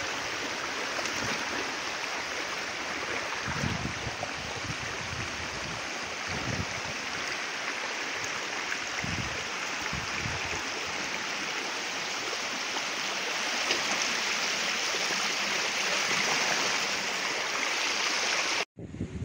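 Floodwater rushing in a steady hiss, with a few low buffets of wind on the microphone. It cuts off abruptly near the end.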